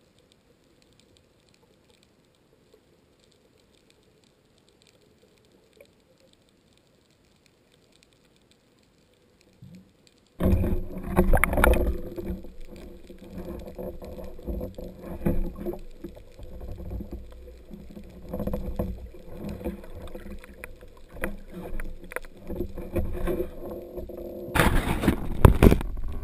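Muffled underwater handling noise from a speargun-mounted camera. Near silence for about ten seconds, then sudden loud knocks and rushing water as the gun is moved, with a louder burst near the end.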